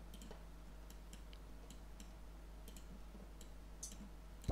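Computer mouse clicks, about a dozen short, irregularly spaced ones, over a low steady hum.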